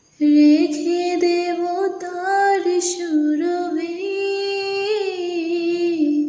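A woman singing a slow Bangla romantic tune, holding long notes with gentle slides in pitch. The voice comes in after a short gap right at the start.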